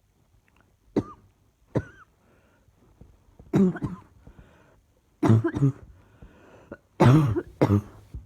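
A woman coughing with a lingering chesty cough: two short single coughs about one and two seconds in, then three louder bouts of several coughs in quick succession.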